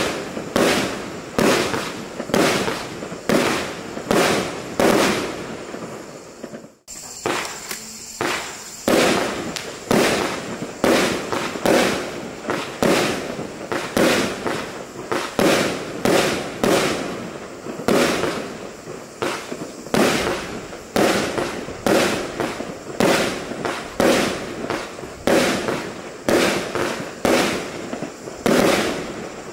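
Magnum WCKD Six consumer firework batteries firing a steady string of shots, roughly one a second, each shot followed by its burst in the air. There is a brief gap about seven seconds in.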